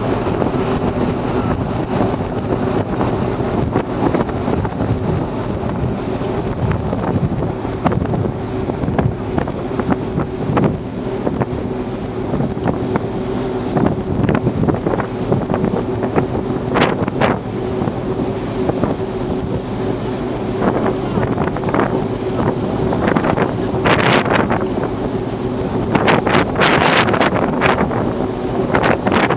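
Wind and rain buffeting the microphone over a steady low hum, with sharp crackles that come thicker in the last few seconds.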